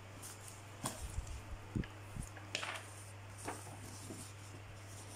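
Packaging and paper of a cross-stitch kit being handled as it is unpacked: scattered soft taps and short rustles, over a steady low hum.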